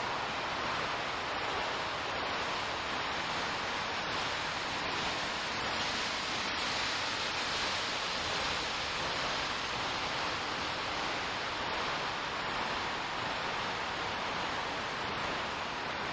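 Steady rushing noise: a processed special-effect sound made from a camera's recording of strong wind and rain.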